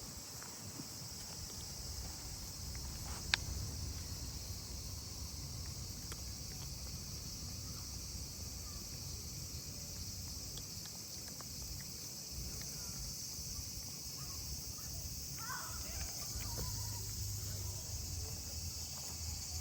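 Steady high-pitched insect chorus with a low background rumble, and a single sharp click about three seconds in.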